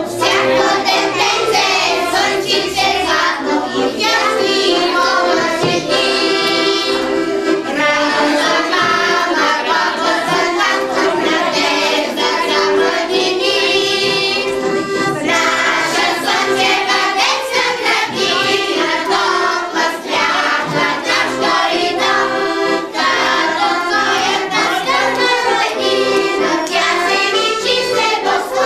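A group of young children singing a song together, accompanied by an accordion.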